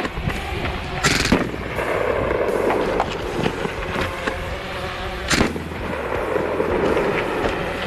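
Hatsan Blitz .30 PCP air rifle firing through a shooting course, with scattered sharp reports. There are two loud bangs close together about a second in and another about five seconds in, the loudest sounds.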